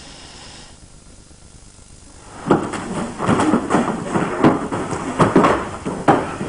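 Scuffling and rapid, irregular knocks of two men sparring and grappling on a mat: feet shuffling, and hands and bodies slapping and bumping. It starts about two and a half seconds in after a quiet stretch, with a sharp thud shortly before the end.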